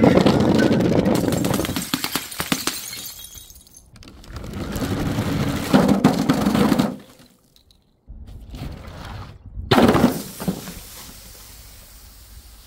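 Paint-filled glass jars and plastic bottles being dropped and smashing, in separate crashes: a long crunching, splattering smash right at the start, another a few seconds later, and a sharp crash about ten seconds in.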